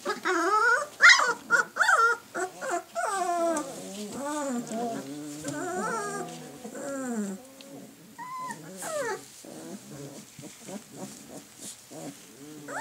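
Several young Bernese Mountain Dog puppies whining and crying over one another in high, gliding calls. They are loudest in the first few seconds, then go on more softly, with a couple of short sharper yips about eight seconds in.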